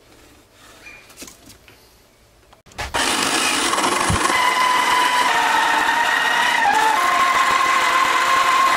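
Metal lathe with a roller tool pressed onto a spinning metal shaft: quiet with a few light clicks at first, then about three seconds in the rollers bite and a loud, steady, high-pitched whine and hiss starts and holds, wavering slightly in pitch.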